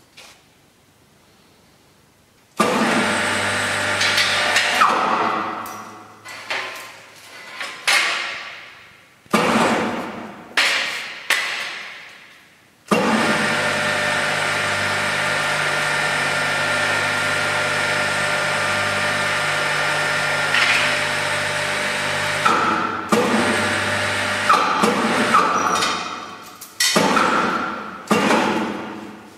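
A machine's electric motor switching on and off repeatedly, running with a steady whine. It runs in several short spells that fade away over a second or so after each stop, with one long steady run of about ten seconds in the middle.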